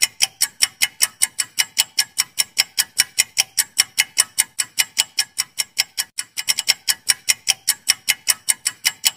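Quiz countdown-timer sound effect: clock ticking fast and evenly at about five ticks a second, marking the time left to answer, with a few quicker ticks past the middle, then stopping suddenly just before the end.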